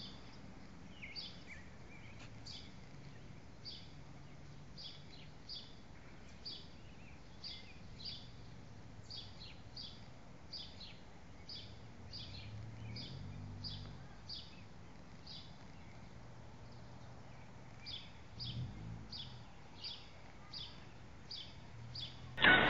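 A bird chirping in a steady series, a little more than one short high chirp a second, pausing briefly about two-thirds of the way through. A faint low hum comes and goes beneath it.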